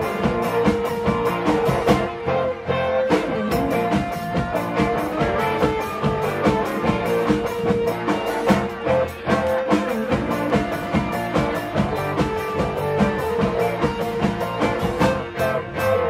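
Live pop-rock band playing an instrumental passage, with electric guitar over a steady drum-kit beat.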